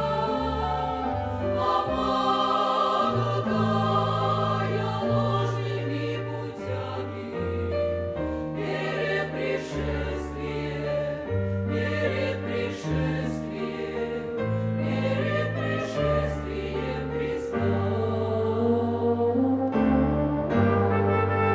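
Church choir singing with a chamber orchestra: a slow hymn of held chords whose bass notes change about once a second.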